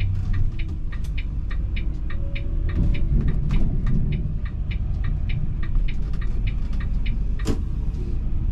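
Volvo B450R coach's engine running low and steady, heard from the driver's cab, under a fast, even ticking of about five ticks a second; one sharper knock about seven and a half seconds in.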